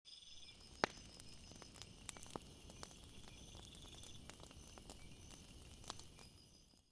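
Faint woodland ambience: short high bird chirps repeating over scattered small clicks and crackles, with one sharper snap about a second in. The sound fades out near the end.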